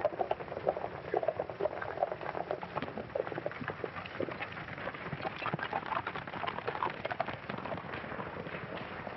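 Hooves of several horses galloping: a dense, irregular clatter of hoofbeats that runs on without a break.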